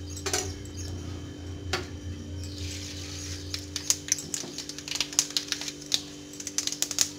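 Mustard seeds in hot sesame oil in a clay pot: a sizzle sets in about two and a half seconds in, then the seeds crackle and pop in quick, irregular clicks as they splutter. Two light knocks come before the sizzle starts.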